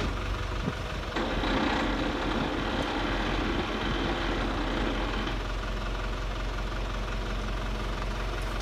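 Crane truck's engine running steadily, picking up and running harder for about four seconds starting about a second in while the crane holds and lowers a large tree trunk onto a truck bed.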